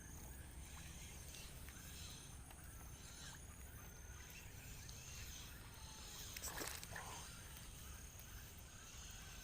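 Faint rural outdoor ambience of insects and small chirping calls, with one short rushing noise about six and a half seconds in.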